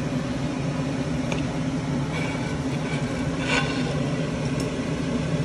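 Steady low mechanical hum in a kitchen, with a few light clicks of lobster shell against the steel stockpot as live lobsters go into the boiling water. The loudest click comes about three and a half seconds in.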